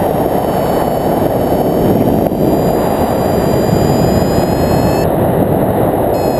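Loud, steady wind rush from the airstream of a hang glider in flight buffeting the camera microphone.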